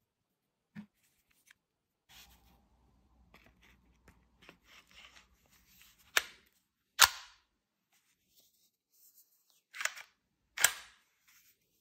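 Glock 17 blowback air pistol being handled: light mechanical clicks and rattles, then four sharp metallic clacks, the second the loudest.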